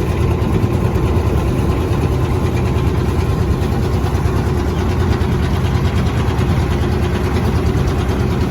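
Small boat's engine running steadily at low speed, a continuous low hum with no changes in pitch.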